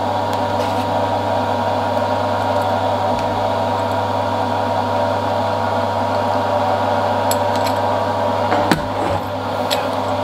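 Steady motor hum made of several constant tones. A few small metallic clicks near the end come from bolts and nuts being handled while Turgo cups are fastened to a stainless steel disc.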